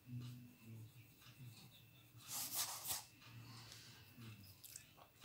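Faint coloured-pencil strokes scratching on the paper of a colouring book, with a louder rubbing, scratchy stretch about two and a half seconds in as the hand moves across the page.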